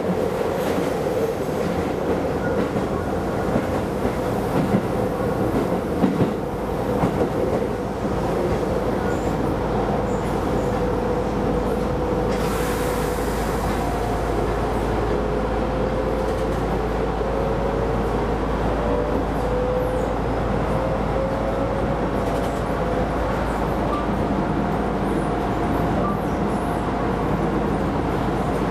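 Keisei Line rapid train running on the rails, a steady rumble of wheels and running gear. A few knocks come in the first several seconds, then a whine slowly rises in pitch over the second half.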